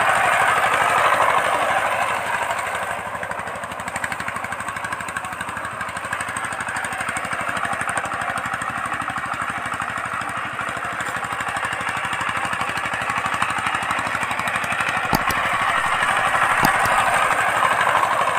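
Two-wheel power tiller's single-cylinder diesel engine chugging steadily under load as it drags a ladder leveller over ploughed soil. It is loud at first, fades as the tractor moves away, and grows loud again near the end as it comes back close.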